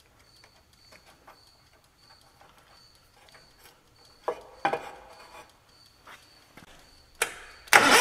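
Clicks of an inline spark tester being fitted onto a spark plug wire, then near the end a click and the starter cranking the John Deere 318's Onan two-cylinder engine. It cranks without firing: there is no spark at the plug.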